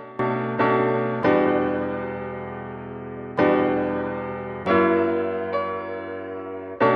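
Background music: soft piano chords struck about every one to two seconds, each ringing out and fading.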